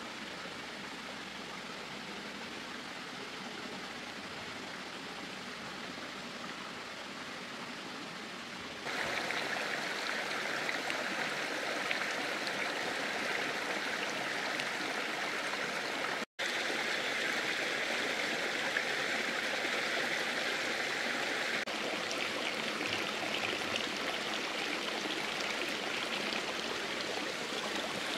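Steady rush of flowing water, like a stream. It turns abruptly louder and brighter about nine seconds in, with a split-second gap in the sound a little past halfway.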